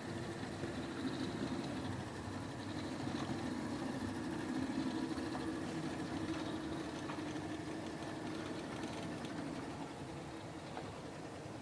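A steady mechanical running hum, swelling a little in the middle and easing toward the end.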